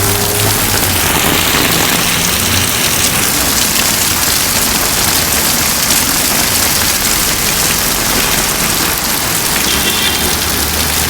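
Steady, loud rush of water, like heavy rain or water pouring through a street drain.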